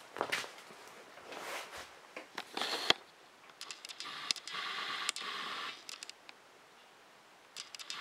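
Rustling and clicking handling noise from a handheld camera being moved about, with a longer steady rustle in the middle.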